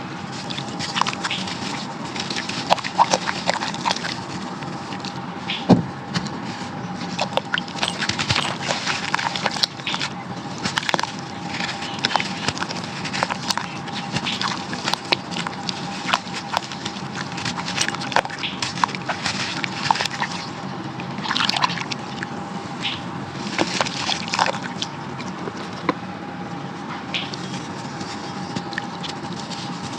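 Crunchy baked sand or clay chunks crumbling in a clay pot with water, with irregular crackles, crunches and wet sloshing.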